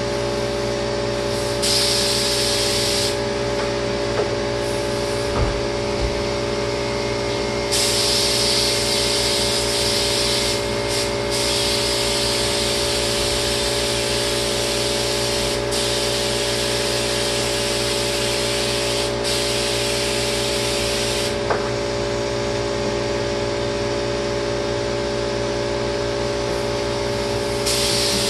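Lacquer spray gun hissing as it is triggered, in spells of a second or two up to several seconds with short breaks between them, over the steady hum of the sprayer's motor.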